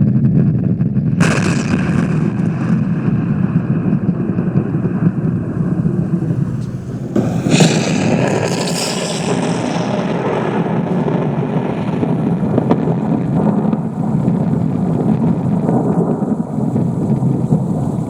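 Thunderstorm sound effect played from a picoSTORM lightning-and-thunder controller: a steady rolling thunder rumble. A sharp crack comes about a second in and a louder one about seven seconds in, and each trails off into rumbling.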